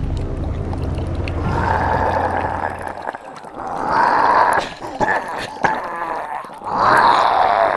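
Cartoonish gurgling, growly sound effects in several bursts, from a soap-foam creature in a sink, with a few sharp clicks. Background music stops about three seconds in.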